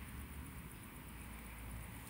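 Faint steady low rumble and hiss of room noise, with no distinct clicks or handling sounds standing out.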